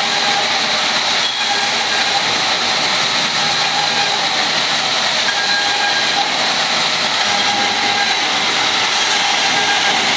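Vertical band saw cutting rubberwood planks: a steady, loud hiss of the blade through the wood, with a thin, high whine over it that holds throughout.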